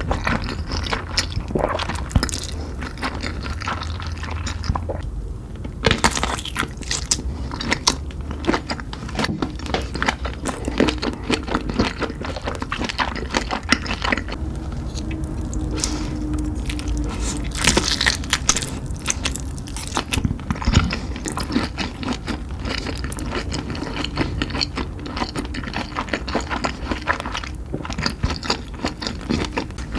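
Close-miked eating of spicy carbonara instant noodles and kielbasa sausage: irregular chewing and biting, wet mouth sounds and utensil scrapes and clicks, dense and continuous.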